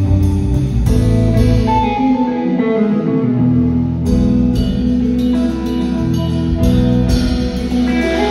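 Live band music: an electric guitar plays a busy melodic line over a drum kit and a deep low end. About two seconds in, the drums and the bass drop away for a couple of seconds, leaving the guitar mostly alone, then the full band comes back in.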